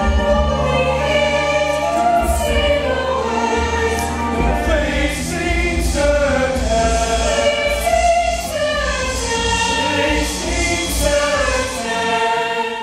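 Music with a choir singing sustained, sweeping lines over a low pulsing bass and light percussion; it cuts off abruptly at the end.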